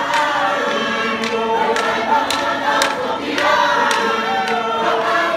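Large choir of men and women singing a Tongan lakalaka together in sustained, overlapping voices. Brief sharp cracks come through now and then.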